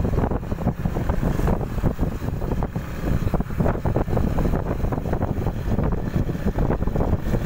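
Wind buffeting the microphone of a moving motorcycle: a loud low rumble with irregular gusts, with road and engine noise underneath.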